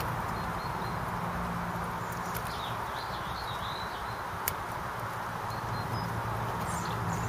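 Steady outdoor background noise, with a bird chirping briefly about a third of the way in and a single sharp click a little past halfway.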